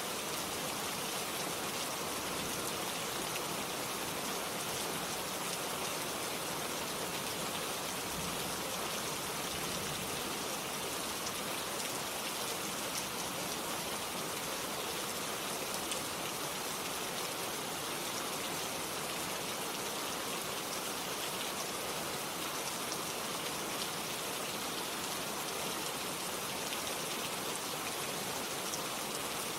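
Steady rain falling, with fine drops pattering on a surface as an even hiss that does not change.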